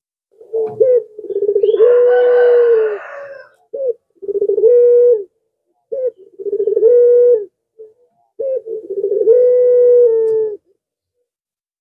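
Barbary dove (puter pelung) cooing: four drawn-out coos at a steady pitch, each one or two seconds long and each opening with short clipped notes, with brief pauses between them.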